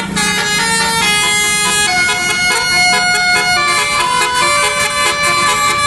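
Basuri musical bus horns playing a telolet-style tune: several held horn tones sound together as a chord that changes pitch every second or so.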